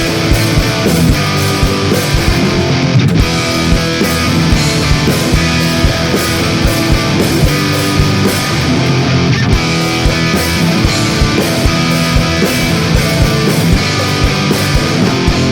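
Background music: loud rock with distorted electric guitar and a steady drum beat.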